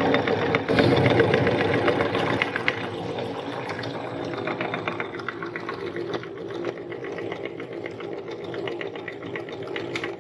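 Metal meat grinder running steadily and crushing square cookies into crumbs, its mechanism grinding under a dense crackle of breaking biscuit. Loudest for the first two or three seconds, then a quieter, even run.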